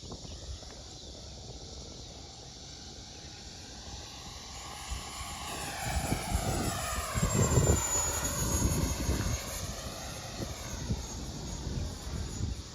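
Avanti 80 electric ducted-fan model jet flying past: its fan whine swells, peaks about two thirds of the way in and fades, the pitch sweeping down and back up as it passes.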